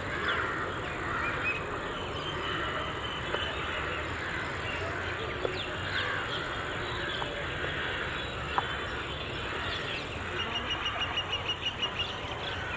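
Outdoor ambience of birds chirping and calling, with a quick run of about a dozen repeated high notes near the end.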